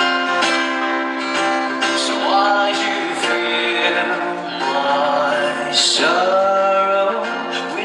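Background pop song: a singing voice holding and gliding between notes over guitar accompaniment.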